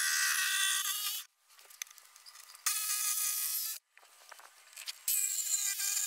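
Cordless jigsaw cutting through a plywood panel in three short runs with pauses between: a longer cut at the start, then two cuts of about a second each near the middle and near the end.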